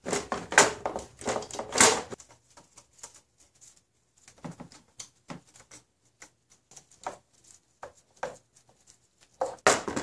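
Plastic engine cover being set back in place over the engine: a dense clatter of knocks and scrapes for about the first two seconds, then scattered light clicks and taps, and another louder clatter near the end as a tool goes to the cover's fasteners.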